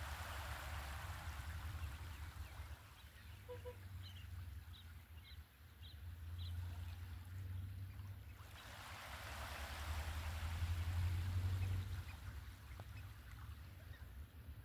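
Small waves lapping and washing onto a sandy shore, swelling twice, with a steady low rumble underneath. A few short bird calls come in between the washes, about four to six seconds in.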